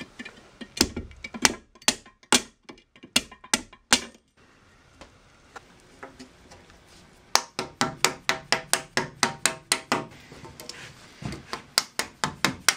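Mallet tapping on the metal fence rail of a SawStop table saw, setting it in place. First a handful of spaced knocks, then a pause of about three seconds, then quick runs of taps at about five a second.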